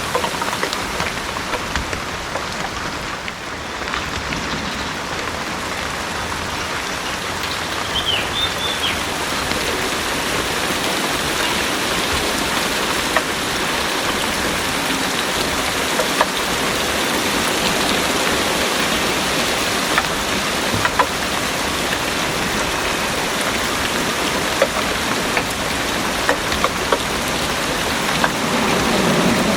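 Heavy rain pouring steadily on garden foliage and surfaces, with scattered sharp drops landing close by. A low rumble of thunder starts building right at the end.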